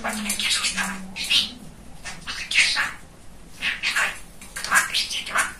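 Budgerigar chattering: a run of short, high chirps and squawky warbles in irregular bursts.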